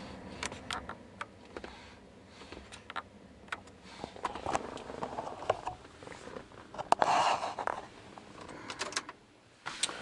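Handling noise: scattered light clicks and rustling of clothing and seat as a person shifts about in a car's driver's seat, with a brief louder rustle about seven seconds in.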